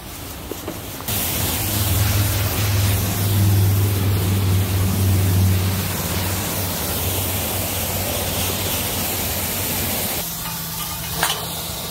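Self-serve car wash pressure wand spraying water onto a car's bodywork: a loud, steady hiss over a low hum. It starts about a second in and eases off around ten seconds in.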